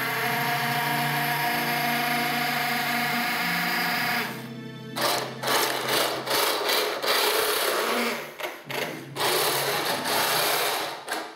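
Heng Long 1/16 RC tank's electric drive motors and gearboxes whirring as it drives, stopping and starting several times. Before it moves off there is a steady multi-tone hum for about four seconds.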